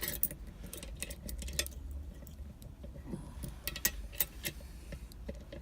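Scattered light metallic clicks and jingles of keys hanging from a padlock clamped in a vice, as the lock is handled, over a low steady hum.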